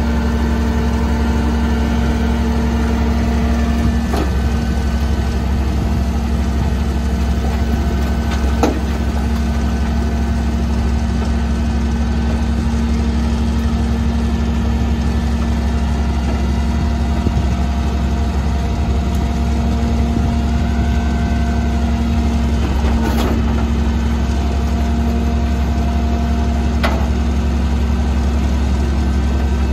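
Leach Sanicruiser rear-loader garbage truck running steadily while its container lift holds a steel dumpster tipped over the hopper, a constant engine and hydraulic drone. A few sharp metal knocks from the dumpster and packer stand out over it.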